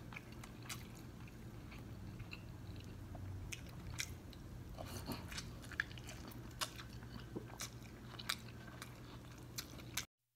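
Close-miked mouth sounds of a person biting and chewing sauce-soaked corn on the cob: scattered wet smacks and crunchy clicks over a low steady hum, cutting off suddenly just before the end.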